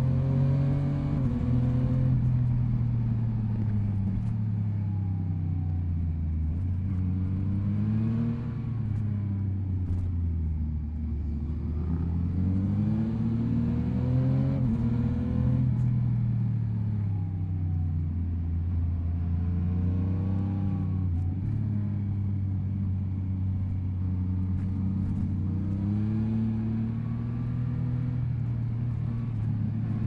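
Yamaha MT-09 SP's three-cylinder engine heard from on the bike, revving up and falling back several times as the rider accelerates and backs off on a winding road.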